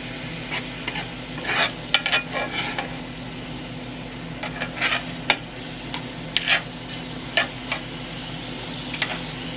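Banana pieces frying in hot grease in a pan on high heat: a steady sizzle with scattered short crackles and pops.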